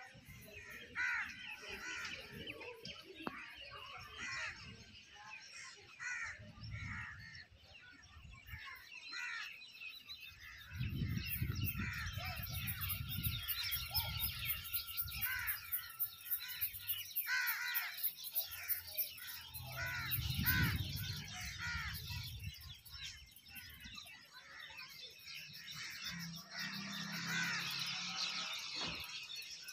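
Many birds calling and chirping together in short repeated calls, while gusts of wind rumble on the microphone several times, strongest around the middle.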